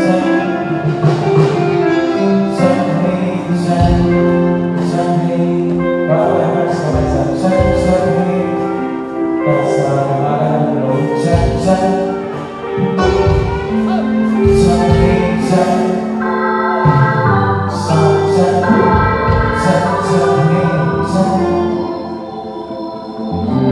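Live band playing amplified music, with singing over the instruments and regular drum hits.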